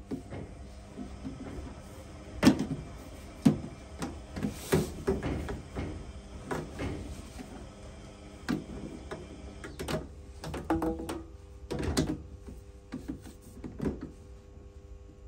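Scattered knocks and clicks as sink trap and waste pipe parts are handled and pushed together during fitting, about a dozen sharp ones at uneven intervals.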